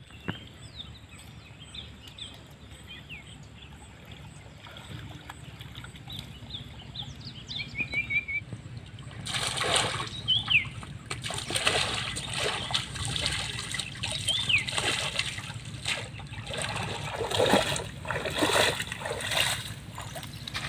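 Water splashing and sloshing as a man wades through a shallow pond, gathering in a gill net. The first half is quiet; about nine seconds in, irregular splashes start and go on to the end.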